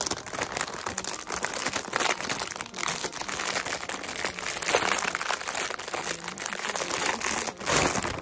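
Clear plastic packaging wrap crinkling and crackling as hands pull it off a flat-packed rack part. The crinkling is continuous and gets louder a little before the end.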